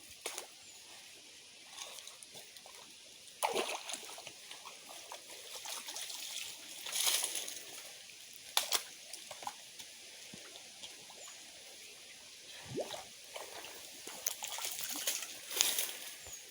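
Muddy stream water sloshing and splashing as the bed is dug out, with irregular splatters and a few sharp knocks from the digging.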